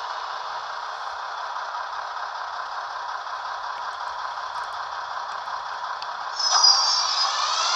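Sound decoder of a Märklin class 245 diesel locomotive model playing diesel engine sound through the model's small loudspeaker: a steady, thin running noise with no bass. About six seconds in it gets louder and a high whine sets in, first falling, then rising in pitch.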